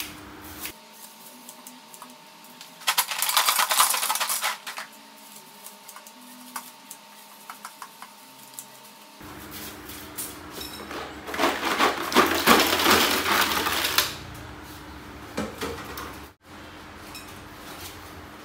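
Rustling and rattling clatter in a large aluminium pot as cut lemongrass stalks and apple snails go into it. The clatter is loudest about three seconds in and again from about ten to fourteen seconds, with scattered small clicks in between.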